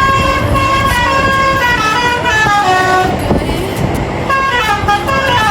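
Bus's Basuri telolet horn playing a tune in quick stepped notes, breaking off about three seconds in and starting again about a second later, over the bus's engine and road noise.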